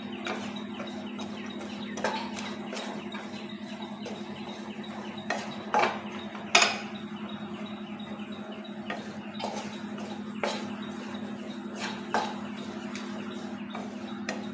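Wooden spatula stirring and tossing sliced vegetables in a non-stick frying pan, with irregular knocks of the spatula against the pan every second or so, over a steady low hum.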